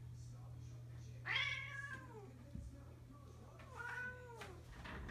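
A cat meowing twice: two drawn-out meows that fall in pitch, the first about a second in and louder, the second about three and a half seconds in.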